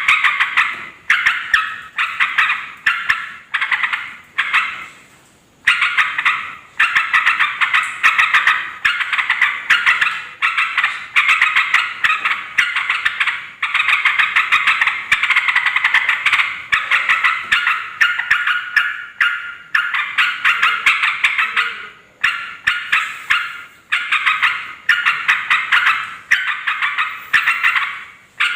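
Yellow-vented bulbuls chattering noisily, a steady string of quick bubbly phrases about one a second with only brief breaks.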